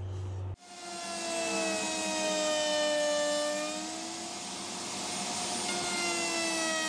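Router in a router table trimming the edge of a round stacked wooden disc with a bearing-guided flush-trim bit: a steady high whine with cutting noise. It starts suddenly about half a second in, and its pitch sags slightly under the load of the cut and recovers.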